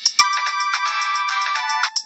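Motorola C168i's built-in polyphonic ringtone playing through the phone's small speaker: a synthesized melody of held notes that starts just after a short click.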